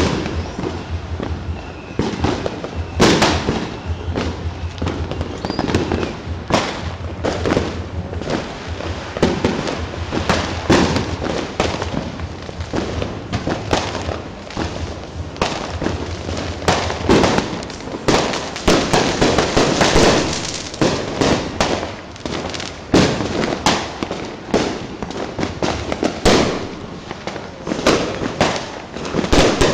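Fireworks and firecrackers going off: a dense, irregular run of bangs and crackles, some much louder than others, with no real pause.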